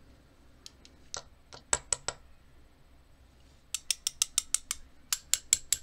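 Small, sharp metal clicks from tweezers and the brass parts of an American Lock 1100 series padlock cylinder being handled during reassembly. A few scattered clicks come first, then a quick even run of about seven a second near the end.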